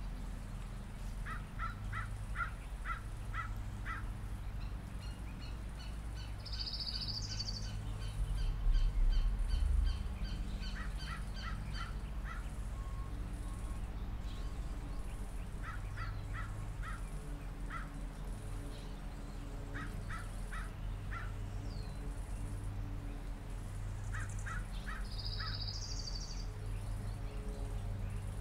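Birds calling in spring: several bursts of short, evenly repeated calls, each burst about a second long, with a higher, brighter call twice, over a steady low background rumble. A louder low rumble swells briefly about a third of the way through.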